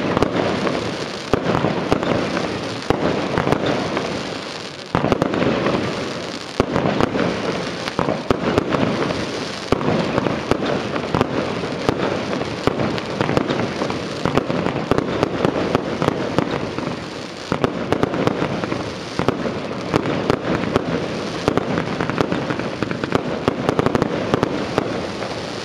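Lesli Pyroconstrictor 25-shot firework cake firing its shots in a quick, tight tempo: a dense, continuous run of launch bangs and bursting breaks overlapping one after another.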